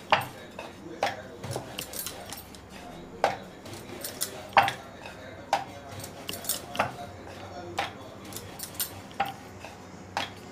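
Kitchen utensils clinking and knocking against each other, sharp irregular strikes with a short ring, roughly one every half second to a second; the loudest comes about halfway through.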